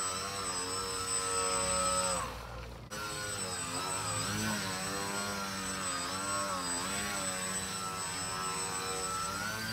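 Electric motor and propeller of a small foam 3D RC plane (3D-T79) holding a nose-up hover, the whine rising and falling in pitch as the throttle is worked. The note falls away briefly a couple of seconds in, then picks back up.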